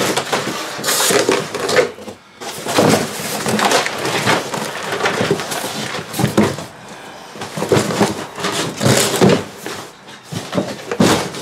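Irregular rustling, scraping and knocking of objects and trash being handled and moved about in a small garage.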